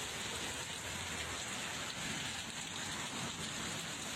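Steady heavy rain falling, an even hiss of rain on surfaces.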